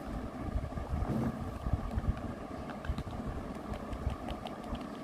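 Low rumbling noise, like wind or handling on the microphone, with a run of light clicks in the last two seconds from the smartwatch box and its packaging being handled.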